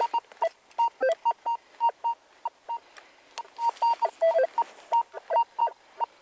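Rutus Argo NE metal detector giving a rapid run of short target beeps as the coil sweeps over a signal. The beeps jump between a high tone and lower tones: a jumpy, mixed reading where iron in the soil masks the target.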